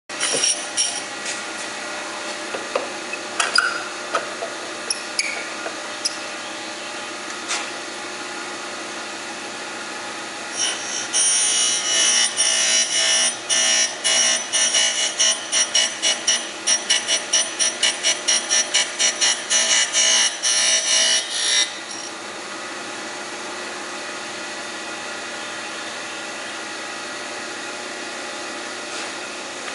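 Kent KGS-200 surface grinder's wheel spinning with a steady whine, with a few sharp clicks in the first several seconds. From about ten seconds in until about twenty-one seconds, the wheel grinds a metal block in a fast run of loud grinding strokes, about three a second, as the table is worked back and forth under it by hand. The wheel then runs on without cutting.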